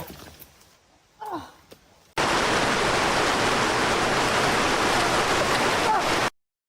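A brief faint voice, then a loud, even rushing noise that starts abruptly about two seconds in and cuts off suddenly near the end, leaving dead silence.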